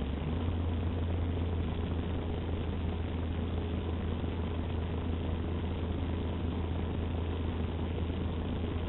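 Utility boom truck's engine running steadily at a low idle, a constant low drone that picks up slightly just after the start.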